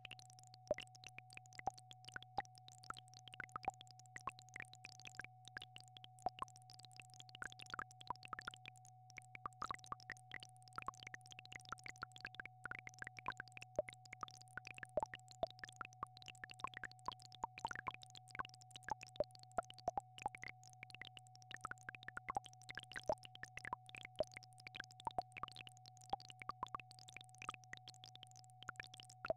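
Steady electronic frequency tones: one pure tone held at a single mid pitch over a low steady hum, with a constant scatter of small plinking plops like water drops over the top.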